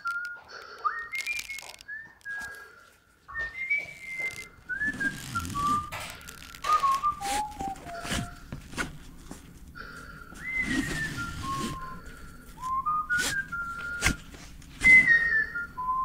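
A person whistling a slow, wandering tune, one note at a time with small slides between notes, broken by short bursts of hiss between phrases.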